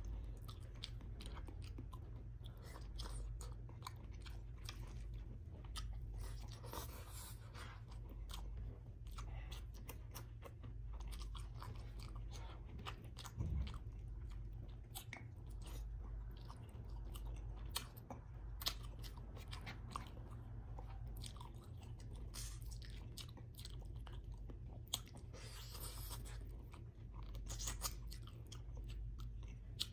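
Close-miked chewing and wet mouth sounds of a person eating rice and vinegar-stewed salmon head by hand, with many small clicks over a steady low hum. A single louder knock comes about halfway through.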